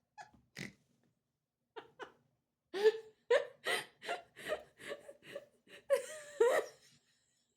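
A person laughing with a wheeze: a few faint gasps, then from about three seconds in a quick run of short, high-pitched bursts that stops about seven seconds in.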